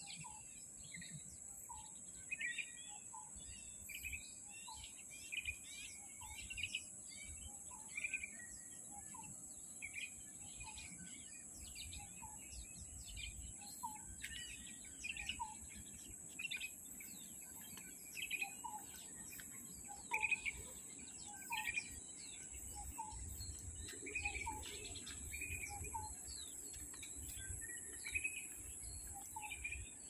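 Wild birds calling: many short chirps repeating about once a second, over a steady high-pitched drone of insects.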